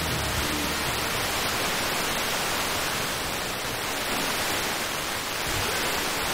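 Steady FM receiver static hiss: the weak 78.9 MHz broadcast signal is barely above the noise floor, so the demodulated audio is almost all noise.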